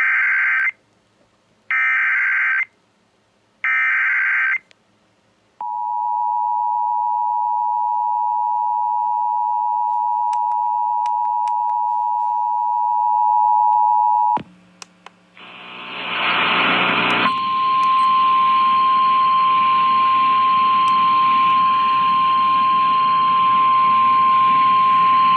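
Emergency Alert System flash flood warning played over an FM clock radio. Three short bursts of warbling data header come first, then the steady two-tone attention signal for about nine seconds. After a brief break, a single steady alert tone sounds over radio hiss, ahead of the voice message.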